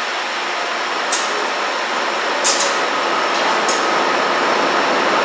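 A BNSF GE AC4400CW diesel-electric locomotive, its 16-cylinder diesel engine running, moves slowly away as a steady noisy rumble and hiss. A few sharp high clicks sound over it, and a faint steady whine joins about three seconds in.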